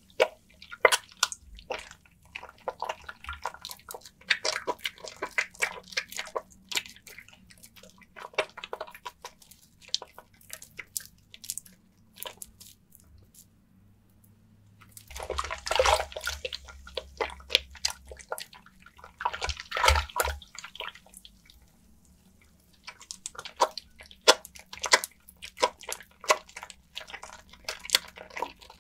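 Wet bar of Nefis lavender soap being rubbed and squeezed by hand in water: irregular wet crackling and squelching with dripping, and two louder splashy bursts about halfway through, separated by short pauses.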